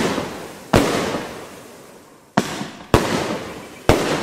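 Lesli 'Olga' 24-shot firework battery firing: four sharp bangs at uneven intervals, each trailing away over about a second.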